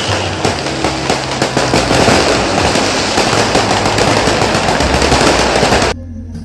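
A string of firecrackers going off in one long, rapid crackling volley of sharp bangs, which stops abruptly near the end.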